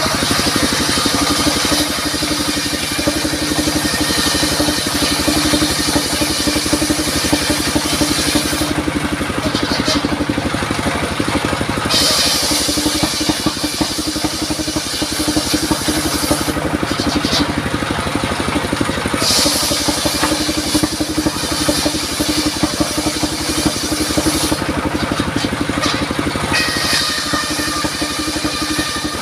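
Engine-driven circular saw running steadily while its blade cuts durian wood, in several long cuts of a few seconds each with short pauses between them.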